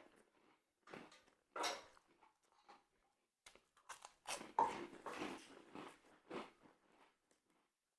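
Biting into and chewing crisp grilled bánh mì: a series of irregular crunches, the loudest about four and a half seconds in, fading out near the end.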